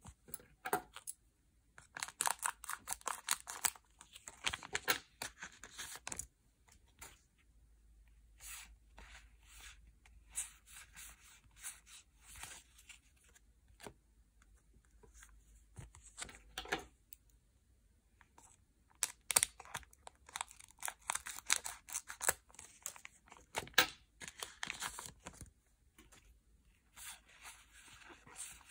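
Yu-Gi-Oh! booster pack foil wrappers being torn open and crinkled, in crackly bursts with short quiet pauses between.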